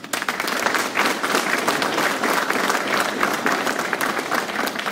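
Audience applauding: many people clapping at once, starting abruptly and fading near the end.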